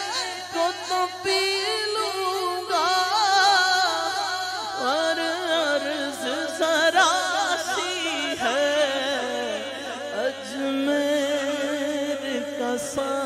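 Male voice singing a naat, unaccompanied Urdu devotional verse, in long wavering melodic lines with many pitch glides. A steady low hum sits underneath throughout.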